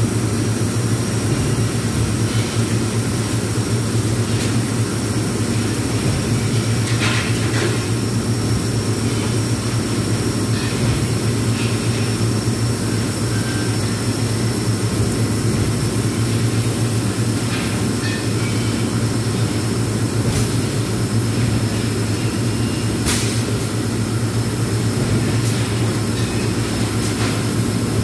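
Steady, loud drone of shop machinery with a constant thin high whine over it. A few sharp knocks come now and then.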